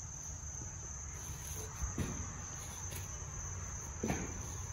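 Crickets chirring in one steady high-pitched band, with low rumble and faint rustling as clothing is handled, including two soft knocks about two and four seconds in.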